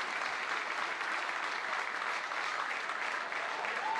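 Stadium crowd applauding and cheering a goal, a steady dense clatter of clapping. Near the end a single held tone comes in over it.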